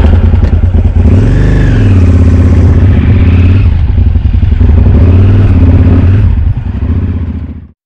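Motorcycle engine recorded close up on the moving bike, its pitch rising and falling several times as the throttle opens and closes. It fades away near the end.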